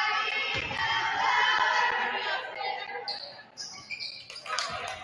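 Cheerleaders chanting in unison, a group of girls' voices, loudest in the first three seconds and then trailing off. Near the end come a few sharp knocks.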